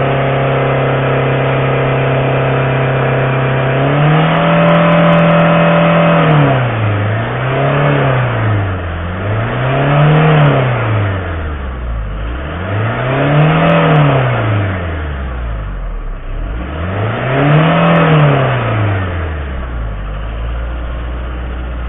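Citroën C5's 2.0 HDi diesel engine held at raised revs, then revved up and let fall four times before dropping back to idle near the end. Its crankcase oil has been dosed with diesel to flush out soot from an engine that smokes black.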